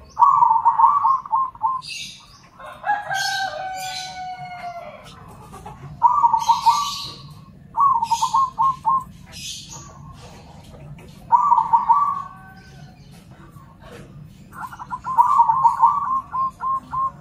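Zebra doves (perkutut) cooing and answering each other in short phrases of quick, rippling coo notes: five phrases, the last one the longest. About three seconds in, a longer call with a slowly falling pitch overlaps them, and high chirps from other birds come and go.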